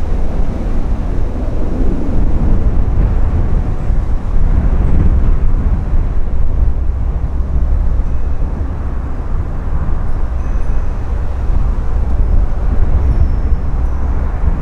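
Jet engine rumble from a Boeing 767-300ER approaching to land, mixed with gusty crosswind buffeting the microphone.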